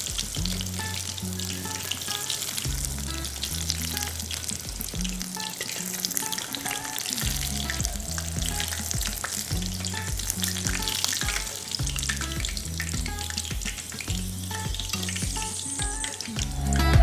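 Hot oil sizzling and crackling as gram-flour-battered, paneer-stuffed green chillies (mirchi bajji) deep-fry in a steel kadai, with soft background music underneath.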